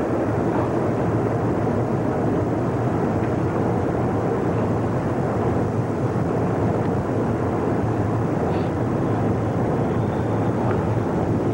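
A steady rushing outdoor noise with no distinct events.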